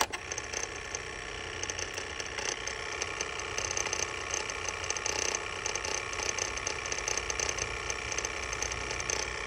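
Electronic throttle body on a 2006 GMC Yukon making a lot of noise, a steady mechanical rattle and whir from its motor and gears over a low engine hum. The noise marks a mechanically failed throttle body, the cause of the reduced-engine-power and throttle-position codes.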